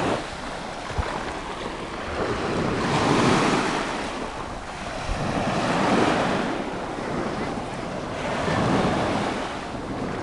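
Small waves breaking and washing up on a sandy beach, the surf swelling about every two and a half to three seconds.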